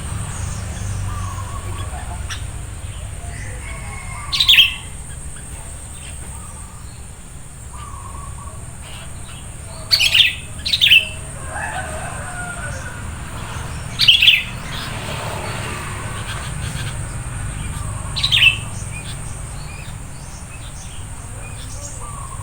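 Sooty-headed bulbuls calling: short, sharp chirps that drop in pitch, about six of them a few seconds apart, with softer chirps in between.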